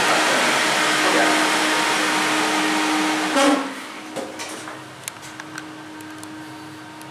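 Loud, steady rushing noise through the open doors of a 2007 Schindler hydraulic lift, cut off about halfway through by a thump as the doors shut. A few light clicks follow over a quieter, steady low hum inside the car.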